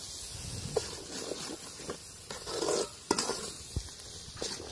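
Steel spoon stirring and scraping thick masala gravy around a metal pot, with a few sharp clinks against the pot's side, while the gravy sizzles in its oil as it fries down.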